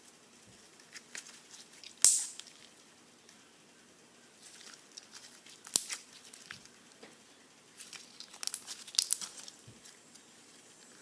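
Homemade glue-and-Tide slime being stretched and squeezed by hand, giving scattered crackles and pops. The sharpest snap comes about two seconds in, and a quick run of crackles comes near the end.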